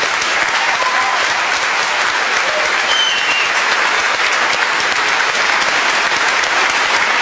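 A studio audience and panel applauding, a steady dense clapping that holds at an even level throughout.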